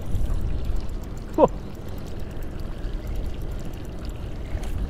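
Water sloshing and splashing around a small boat over a steady low rumble, with one short falling squeak about a second and a half in.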